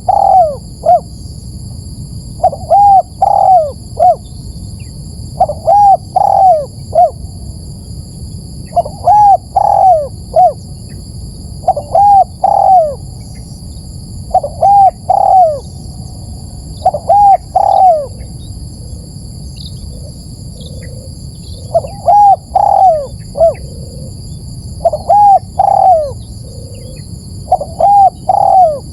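Spotted dove (tekukur) cooing: short phrases of two or three rising-and-falling notes, repeated about every three seconds with one longer pause midway. It is the bird's territorial/calling song, used as a lure call to draw other doves.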